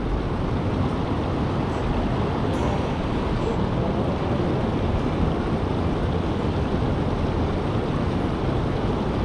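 Steady rushing of river water pouring over a low concrete weir, with wind buffeting the microphone.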